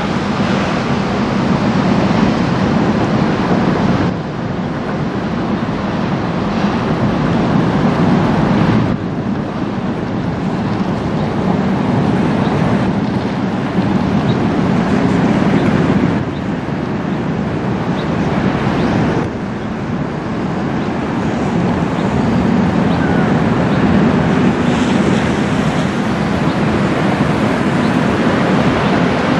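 Loud, steady rushing of wind on the microphone and moving river water, with a low hum underneath. The level drops and returns a few times.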